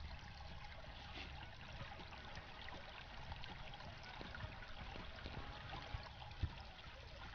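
Faint, steady trickle of flowing creek water, with one small knock about six and a half seconds in.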